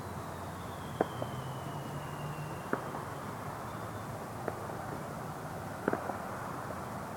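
Scattered distant fireworks popping around town: about six single sharp bangs, two close together near the end, over a steady background hum. A faint falling whistle runs through the first two and a half seconds.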